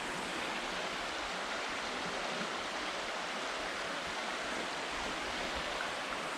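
A steady, even hiss like rushing air or running water, with no distinct knocks or steps standing out.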